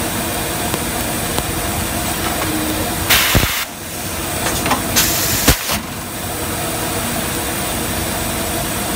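Garbage bag cutting machine running steadily, with two loud hisses about three and five seconds in, each with a sharp click.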